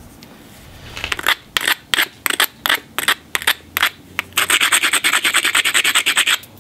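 An abrader rubbed along the edge of a cherty mudstone biface, grinding the striking platform so it will stand a hard billet blow. The scraping strokes come a few a second at first, then in a quick continuous run over the last two seconds.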